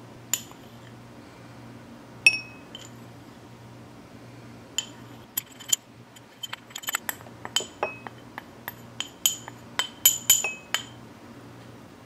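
Metal spoon clinking against a drinking glass and a ceramic bowl as powder is spooned in: two single clinks, the second loud and briefly ringing, then a quick run of light taps and clinks in the second half.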